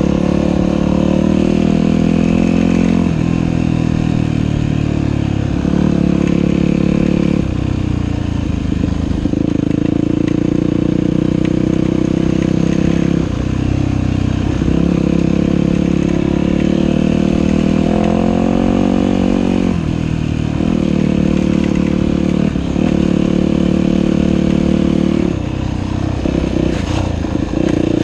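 Dirt bike engine running under way on a trail, its pitch climbing and dropping back every few seconds with the throttle.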